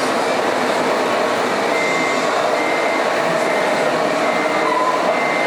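Steady whir of electric RC model truck motors and gearboxes, with a faint high whine that comes and goes.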